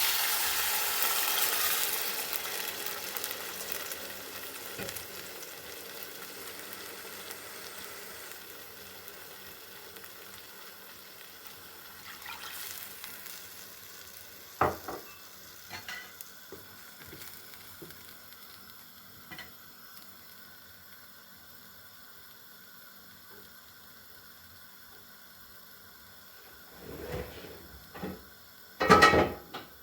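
Food sizzling in a hot pan, loud at first and dying away over several seconds, followed by a few light clicks of utensils and some louder knocks near the end.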